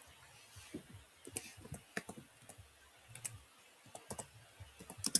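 Light, irregular clicking of typing on a keyboard, about twenty scattered keystrokes.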